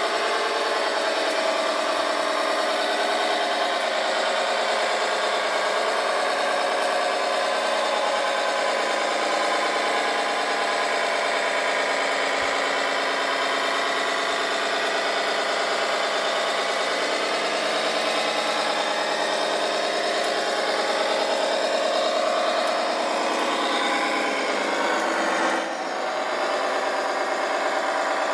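Radio-controlled scale construction machines running: a steady engine-like drone with no deep bass, its pitch shifting a little, with a brief dip in level near the end.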